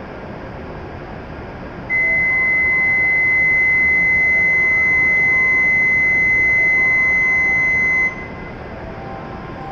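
Electronic door-closing warning buzzer: one steady high beep, held for about six seconds and cut off sharply, over the steady hum of a stopped shinkansen train and the station.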